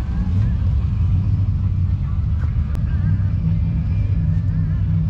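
A car engine running steadily with a deep, even note that firms up about three and a half seconds in.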